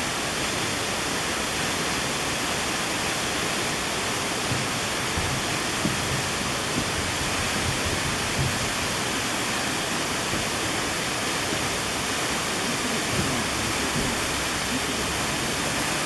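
Waterfall in winter, water falling past a column of ice and icicles and splashing at its base: a steady, unbroken rushing hiss.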